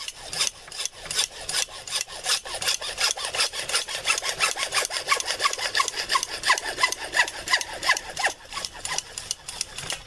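Hand saw cutting through 1.5-inch PVC pipe in quick back-and-forth strokes, about four a second, many strokes squeaking briefly midway through. The sawing stops near the end as the cut-off piece comes free.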